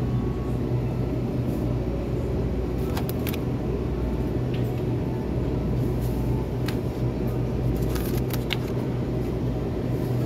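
Steady low hum and rumble of supermarket refrigerated display cases, with a few faint scattered clicks.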